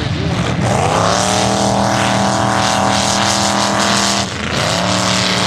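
Mud-bog truck's engine revving hard under full throttle. It climbs in pitch over the first second or two and is held high, drops briefly about four seconds in as the throttle lifts, then climbs straight back up and holds.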